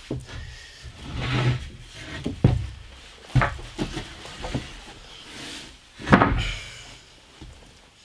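Lumber boards knocking and scraping against each other as a long board is pulled out of a stack and slid along an OSB floor. There are several sharp wooden knocks, with the loudest about six seconds in.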